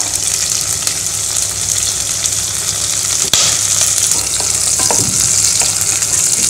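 Sliced onions, green chillies and whole spices sizzling steadily in hot ghee and oil in an aluminium pressure cooker, stirred with a wooden spatula. One sharp click a little past halfway.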